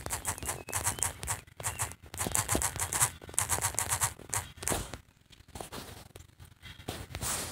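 Rapid fingertip taps on a phone's touchscreen keyboard while typing, picked up by the phone's own microphone. The tapping thins out after about five seconds.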